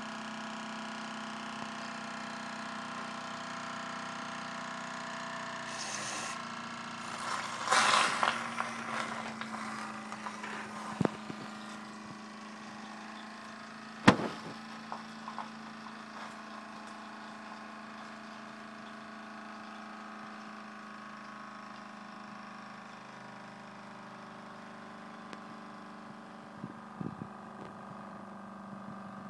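Live-steam model steam roller firing up with a steady hum, a loud crackling hiss about seven to nine seconds in, and one sharp bang about fourteen seconds in: leftover oil in the system flaring up into a fireball.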